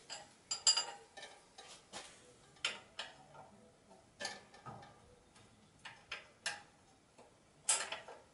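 Irregular metallic clicks and clinks of a wrench working on a bolt to free the exhaust muffler of a tractor engine, with a sharper clack near the end.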